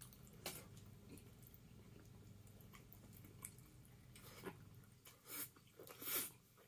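A man chewing a mouthful of fried food, faint with scattered soft mouth clicks, and two louder mouth noises near the end, a little under a second apart.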